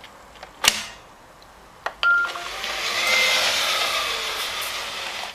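Neato robot vacuum starting a cleaning run: a sharp click, a second click and a short beep, then its suction motor and brush start up and run steadily.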